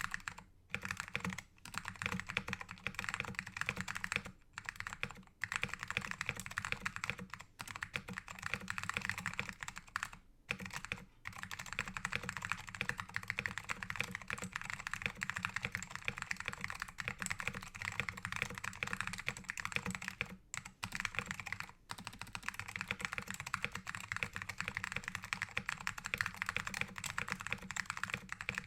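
Fast, continuous typing on a mechanical keyboard with lubed SKCM Orange Alps switches on a plastic plate and dye-sub PBT keycaps: a dense run of key clicks and bottom-outs, broken by a few brief pauses.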